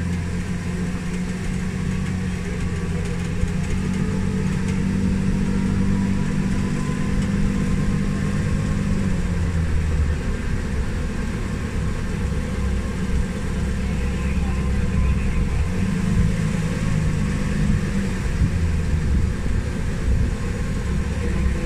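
Tram's motor running steadily as it carries passengers along, a low hum that shifts slightly in pitch a few times.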